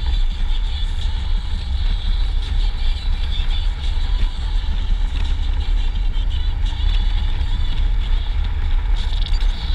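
Wind buffeting the microphone of a helmet-mounted camera on a touring motorcycle at road speed: a loud, steady rumble with a hiss of motorcycle and road noise over it.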